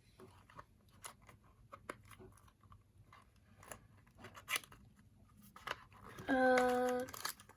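Small sharp clicks and light plastic crinkling as a small plastic accessory box and its packaging are handled and opened. Near the end, a person's voice holds one steady note for under a second; this is the loudest thing.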